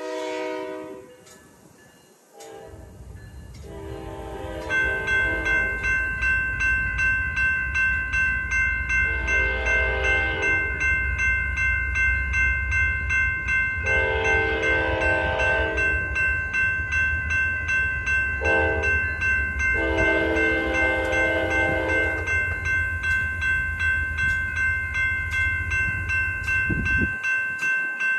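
Grade-crossing warning bells ringing in a steady rhythm. An approaching diesel locomotive rumbles and sounds its horn in several blasts, long ones with a short one near the end, the crossing warning signal.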